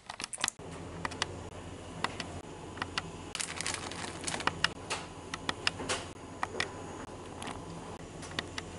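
Handling sounds while oats are made: a plastic bag crinkles as raisins are tipped into a bowl of oats and ground spices are added, giving a scatter of small clicks and taps. A steady low hum runs underneath.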